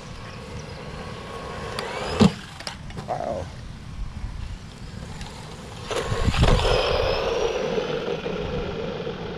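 Laegendary Tornado 1/12-scale RC truck driving, its brushed electric motor whining and rising in pitch as it speeds up, twice: once about two seconds in and again, louder, from about six seconds in. A sharp thump comes just after the first speed-up.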